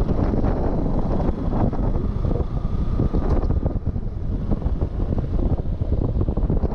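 Wind buffeting the rider's microphone over the running single-cylinder engine of a Hero Xpulse 200 motorcycle on the move.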